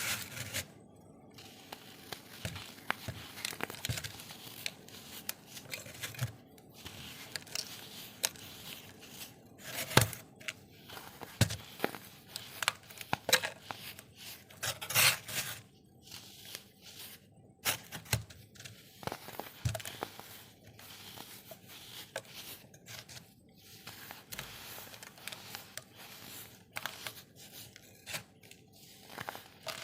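Chunks of baking soda being crushed and crumbled, giving irregular crunchy crackles with a few sharper, louder cracks around the middle.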